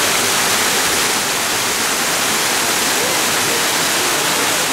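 Waterfall pouring down a rock wall in several streams: a steady, loud rush of falling water.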